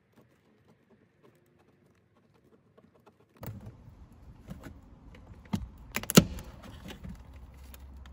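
Scattered clicks and knocks of hands and tools working on plastic car dashboard trim, with one sharp knock about six seconds in. The first few seconds are almost silent.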